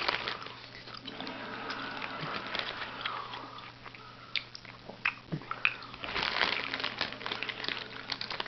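A person chewing and crunching sweets, with scattered sharp crackles and clicks.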